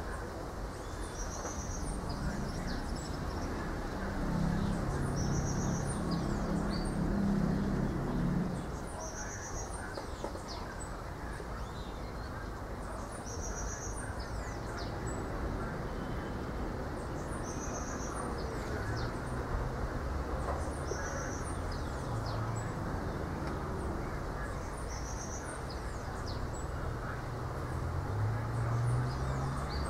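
Outdoor ambience of wind and birds: a short, high, pulsed call repeats about every four seconds among scattered high chirps, over a steady rushing wind. A faint low hum comes and goes, strongest in the second half.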